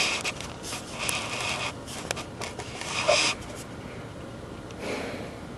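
Handling noise: fabric rustling and rubbing as the camera is moved against the bedspread and bedding, in a series of scratchy bursts that settle down about three and a half seconds in.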